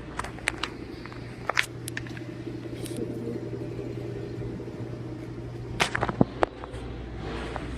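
Restaurant dining-room background: a steady low hum with scattered sharp clinks and knocks, a few about half a second in and a louder cluster near the six-second mark.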